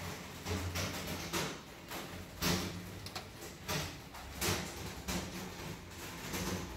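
Heavy rain pelting hard on windows and rooftops, with gusty surges every second or so, hard enough to sound like hail.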